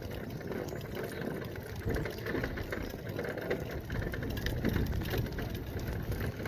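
Electric wheelchair moving along a path: its motor and tyres make a steady rolling noise with a light crackle.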